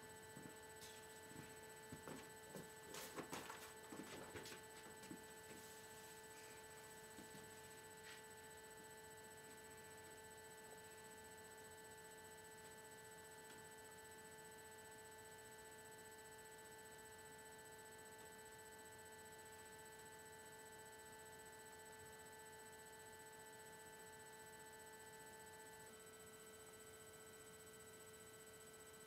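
Near silence, with a faint steady electrical hum made of several high tones. A few soft knocks and clicks come in the first five seconds, and near the end the mix of hum tones shifts slightly.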